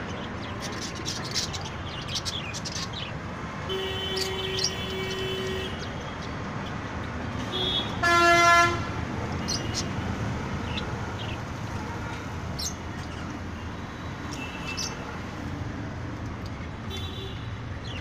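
Budgerigars chirping in short, high, scattered calls over steady traffic noise. A vehicle horn sounds faintly for about two seconds around four seconds in, then a louder, short honk about eight seconds in is the loudest sound.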